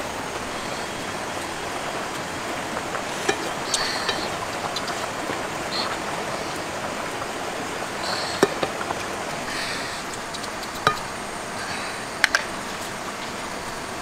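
Food frying in a pan over an open fire, a steady sizzling hiss with a few sharp clicks now and then.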